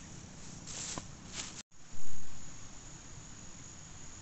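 Steady insect chorus in the grass, a continuous high hiss. About halfway through, the sound drops out for a split second and a brief loud bump follows.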